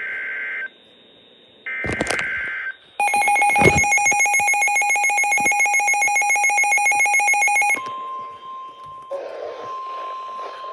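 NOAA Weather Radio emergency alert signals: two short bursts of the buzzing EAS data tones, then a Midland weather radio's own alert beeping rapidly and loudly for about five seconds, then from about three-quarters of the way in the steady single-pitch 1050 Hz warning alarm tone. A couple of thumps fall near the start of the beeping.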